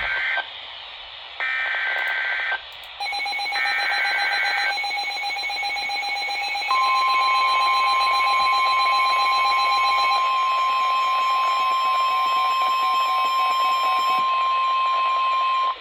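Emergency Alert System header: the end of one short raspy SAME data burst and then two more, about a second apart. From about seven seconds in comes the steady, high NOAA Weather Radio 1050 Hz warning alarm tone, which holds for about nine seconds and signals a severe weather warning. A second, pulsing alert tone is layered underneath from about three seconds in.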